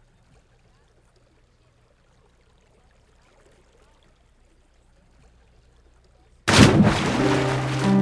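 Near silence with a faint low hum. Near the end a sudden loud rush of noise breaks in and leads straight into piano music.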